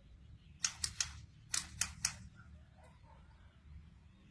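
Six sharp cracks in two quick groups of three, the second group about a second after the first, over a faint low hum.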